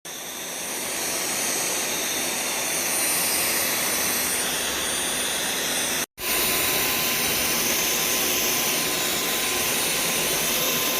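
Dyson V12 Detect Slim cordless stick vacuum running: a steady rush of air with a thin high whine, building over the first couple of seconds. It breaks off for an instant about six seconds in, then runs on.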